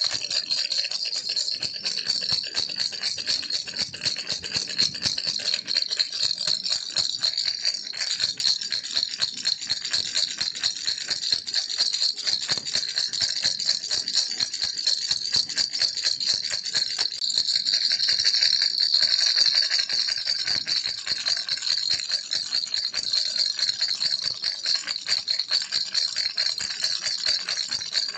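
Baby's toy rattle shaken continuously: a fast, dense, even rattling of small pellets, a little louder for a few seconds about two-thirds of the way through.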